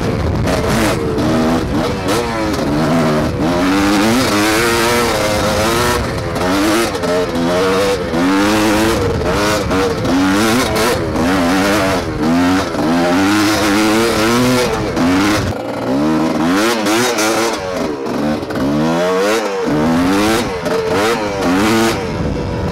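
GR7 250 two-stroke enduro motorcycle engine on the move, its pitch climbing and dropping again and again as the throttle is opened and closed, with frequent short knocks from the bumpy ride.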